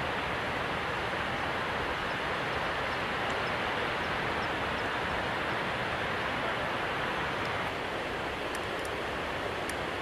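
Steady rush of falling and running water from the Gavarnie waterfalls and the mountain stream below them, a little quieter after a cut near the end.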